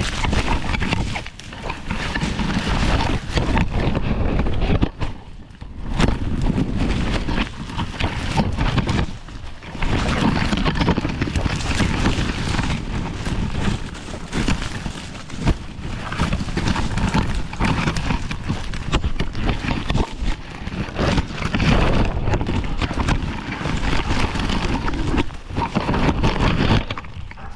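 A dog running through dense ferns and dry brush, heard from a GoPro on its harness: fronds and twigs scrape and crackle against the camera, over the thud of its paws on the ground. The noise is loud and uneven and drops off briefly several times.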